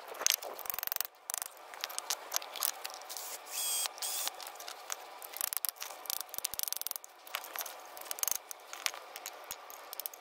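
Hammer striking a chisel on a partly drilled-out steel ball joint rivet, a series of irregular sharp metallic strikes knocking the leftover rivet ring off the control arm.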